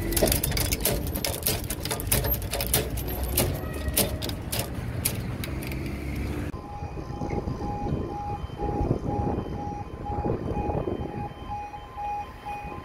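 Rumbling outdoor noise with many sharp clicks and knocks, then, about halfway in, a level crossing warning alarm starts: an electronic tone pulsing on and off at a steady, rapid rate while the red warning light shows.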